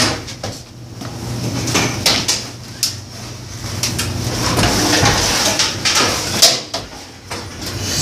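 A washing machine strapped to a hand truck being moved on a staircase: irregular knocks and thuds as the dolly's wheels bump from step to step, with scraping and rattling in between.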